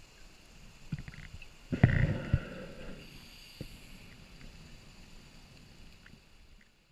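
A scuba diver breathing through a regulator underwater: a loud rumbling burst of exhaled bubbles about two seconds in, followed by a softer hiss of the next inhale, with small clicks throughout.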